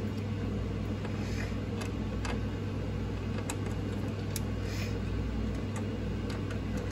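A steady low hum, with a few faint light clicks of a screwdriver turning the CPU cooler pump block's mounting screws.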